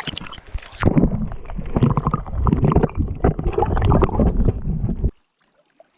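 Muffled water sloshing and gurgling heard through a camera held underwater. It cuts off suddenly about five seconds in.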